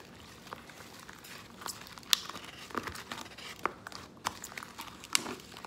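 Hands kneading and pulling sticky slime in a bowl as instant snow powder is worked in, making irregular small crackles and sticky clicks, with a sharper pop about two seconds in and another near the end.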